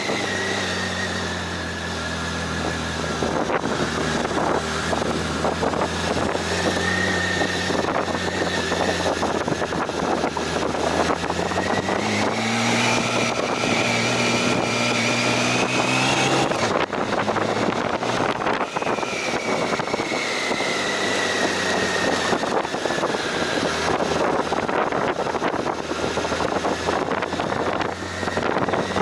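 Motorcycle engine running on the move, with wind rushing over the microphone. About halfway through the engine note climbs for a few seconds, then falls away suddenly.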